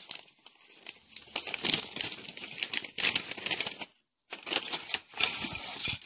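Kraft paper wrapping being crinkled and torn open by hand, in irregular rustles and rips. The sound cuts out completely for a moment about two-thirds of the way through.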